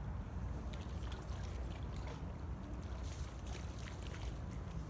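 Small hooked carp splashing and thrashing at the water's surface as it is reeled to the ditch bank, in a run of short sharp splashes, over a steady low rumble.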